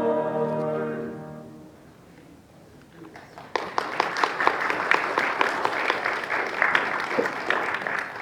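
A choir's held final chord fades out over the first second or so. After a short lull, a congregation applauds for about five seconds, and the applause stops abruptly.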